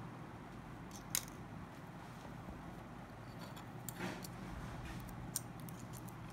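A few small sharp clicks and taps from phone parts being handled during disassembly, the loudest about a second in, over a steady low hum.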